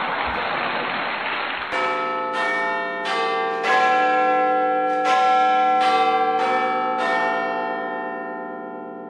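A steady hiss with a few low thuds, then, about two seconds in, a run of about eight struck bell-like chime notes, roughly two a second, that ring on and slowly fade away.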